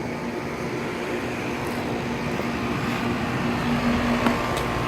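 2017 Goodman GSX14 5-ton central air-conditioning condensing unit running: a steady hum of compressor and condenser fan, with a couple of light ticks near the end.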